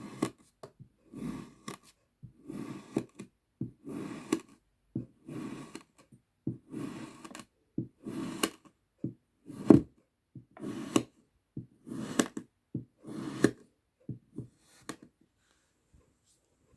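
Kinetic sand being cut with a blade: a short, grainy slicing stroke about once a second, stopping near the end.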